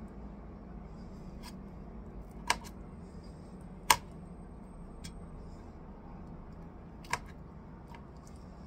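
Small kitchen knife cutting pieces of meat on a cutting board, its blade clicking sharply against the board three times, the loudest about four seconds in, over a low steady hum.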